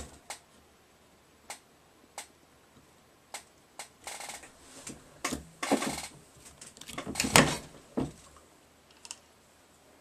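Metal clicks and scrapes from a reloading press with a Hornady Cam-Lock collet bullet puller being worked by hand. A few sharp single clicks come in the first four seconds, then longer rattling scrapes follow, loudest about seven seconds in.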